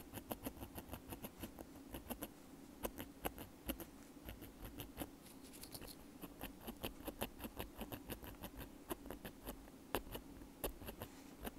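Bamboo ear pick scratching on a wired earbud: quick, crisp scratches, several a second in an uneven rhythm, imitating the scratching of ear cleaning.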